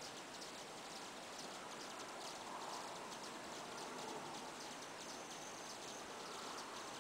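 Hummingbirds giving rapid, faint high-pitched chipping calls while mobbing a perched hawk, with a thin high whistle held for about a second near the end.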